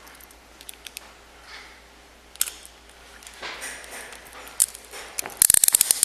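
Handling noise with scattered clicks and light rustling, then a fast run of loud, sharp clicks about five and a half seconds in.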